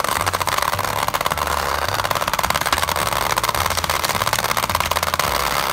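Battery-powered motor of a Hasbro Bed Bugs game shaking the plastic bed, a fast steady rattling buzz that starts suddenly as the game is switched on.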